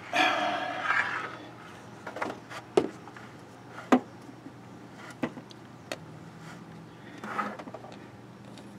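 Hands working on parts and a hand-held camera in an engine bay: a louder rubbing noise for about the first second and a half, then a handful of scattered sharp clicks and knocks, over a faint steady low hum. The engine is not running.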